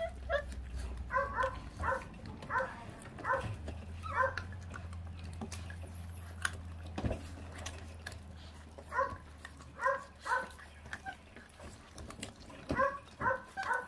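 Feral-dog puppies giving short, high-pitched yips. About seven come in the first four seconds and more come in clusters later, with faint clicks of chewing on raw meat and bone between them.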